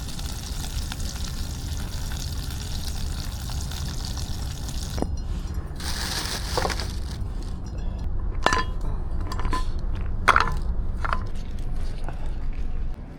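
Wagyu steak sizzling on a hot grill for about the first five seconds, then a run of light, sharp clinks and taps over a steady low rumble.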